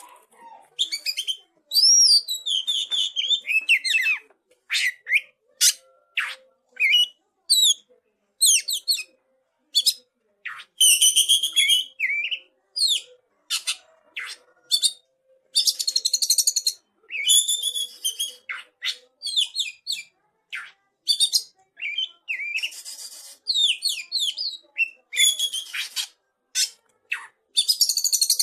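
Young oriental magpie-robin (kacer) singing a varied song with phrases copied from a cililin. It goes in short, high-pitched phrases of whistles, rising and falling sweeps and dense chattering trills, with brief pauses between them.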